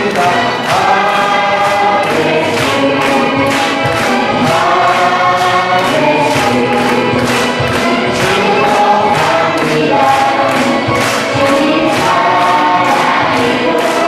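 A Christian praise song sung by many voices over backing music, with a steady beat of hand-clapping.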